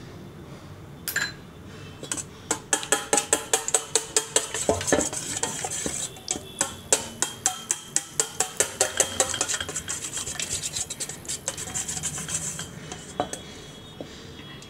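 Wire whisk beating a raw egg in a stainless steel bowl, its wires clicking rapidly against the metal at about four strokes a second. The whisking starts about two seconds in and stops near the end.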